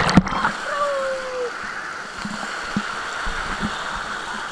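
Steady rush of running water, with a few soft splashes.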